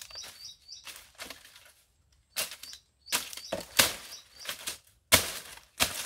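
Several sudden rustling and cracking bursts as nipa palm shoots and dry fronds are handled and cut low on the plant, the loudest about five seconds in. A bird chirps in quick repeated short notes during the first second or so and again briefly midway.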